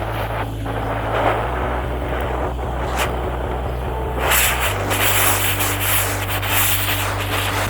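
Rough abrasive scrubbing, like sanding or brushing rust off metal, under background music. It gets louder and brighter about four seconds in.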